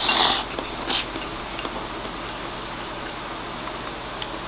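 Wooden chopsticks scraping the inside of a ceramic rice bowl as oyakodon is shoveled from the rim into the mouth: two short scrapes in the first second, then faint chewing.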